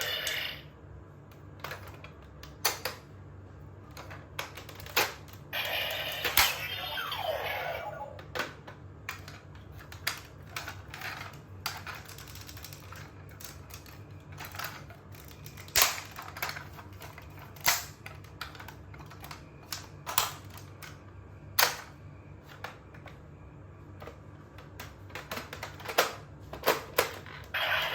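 Hard plastic clicks and snaps from a DX Tridoron toy car being handled and its parts worked, single sharp clicks spaced irregularly, with a busier rattling stretch about five to eight seconds in. A faint steady low hum runs underneath.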